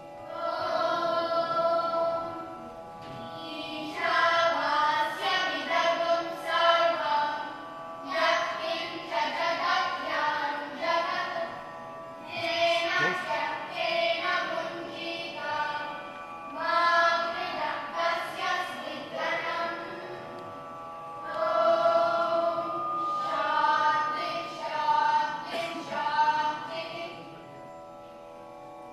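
A children's choir singing a Sanskrit verse in phrases of a few seconds, with short pauses between them.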